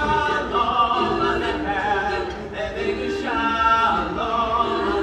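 Small mixed choir of carolers singing a holiday song a cappella in harmony, with long held notes.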